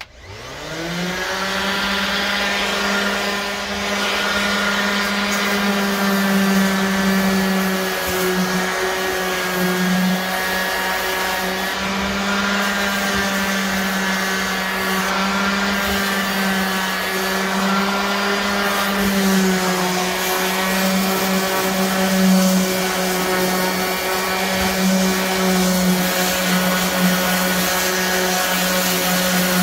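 Electric sander with 80-grit paper switched on, spinning up to speed within about a second, then running steadily as it sands wood, its pitch wavering slightly under the work.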